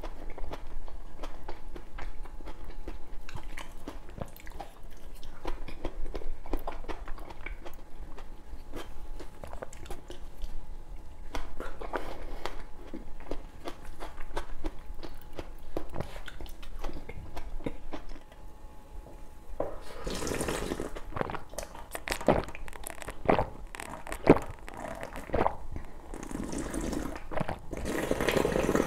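Close-miked chewing of soft tomato slices with small wet mouth clicks. About twenty seconds in it gives way to louder, repeated slurping of liquid drunk straight from the end of a metal tray.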